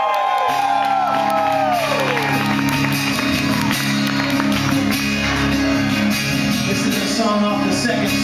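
Live band music with a crowd shouting and cheering. High sliding notes fade out in the first moments, then a sustained low chord comes in about half a second in and holds.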